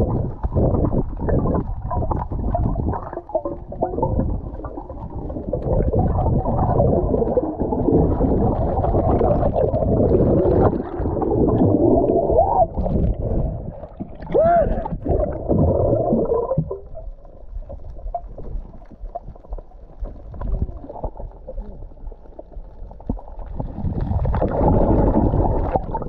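Muffled underwater sound: water rushing and bubbling around the camera as the diver moves.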